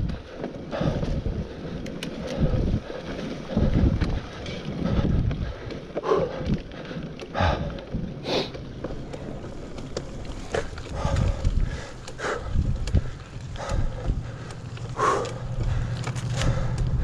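Mountain bike riding over a rough dirt trail: rumbling tyre noise with many irregular knocks and rattles as the bike goes over bumps, and wind on the microphone.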